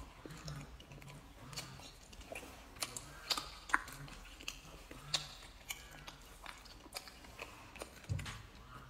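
A person chewing a mouthful of stir-fried pork and vegetables: soft mouth and chewing sounds with scattered short, sharp clicks, the loudest about three and a half seconds and five seconds in.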